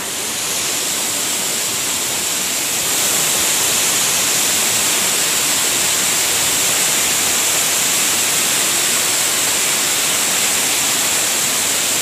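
Waterfall's rushing water, a steady even rush of noise that grows slightly louder about three seconds in.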